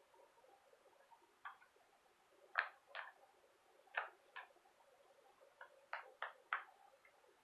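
Faint, irregular short clicks, about ten in all, some in quick pairs, over a faint steady background.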